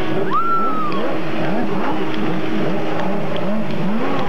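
Racing personal watercraft (jet ski) engines at speed, their pitch rising and falling again and again in quick swells, over a steady engine drone.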